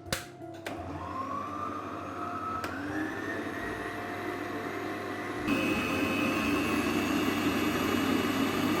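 Electric mixer beating butter and icing sugar into frosting. Its motor whine rises in pitch as it spins up about a second in, then it runs steadily and turns louder and higher about five and a half seconds in.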